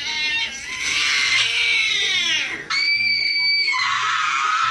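Loud screaming sound effects over background music: a long shriek falling in pitch, then about two and a half seconds in, a sudden held high scream that drops to a lower held cry.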